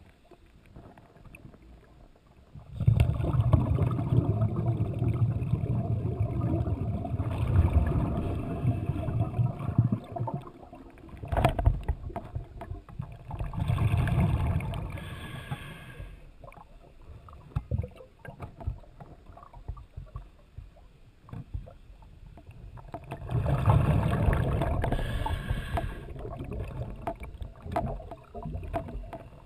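Scuba diver's exhaled bubbles bubbling and gurgling past the camera underwater, in bursts of a few seconds. The first long burst starts about three seconds in, and there are quieter breaks between the breaths.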